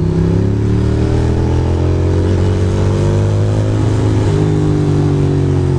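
Ducati Monster's L-twin engine running under light, varying throttle, its note easing gently up and down, over a steady hiss of wind and wet road.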